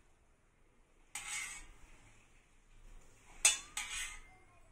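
Steel ladle scraping and clinking against a stainless steel kadai while scooping out leftover oil, with one sharp, ringing metal clink about three and a half seconds in, the loudest sound.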